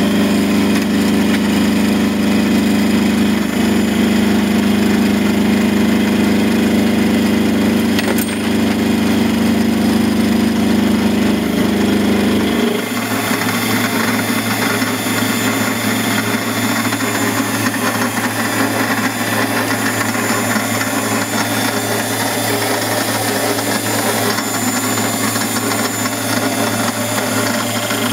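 D180x300V mini lathe running, with a milling cutter held in its chuck cutting a workpiece fed on a cross-slide milling attachment: a steady machine hum and cutting noise. About thirteen seconds in, the hum changes tone and gets slightly quieter, then runs on steadily.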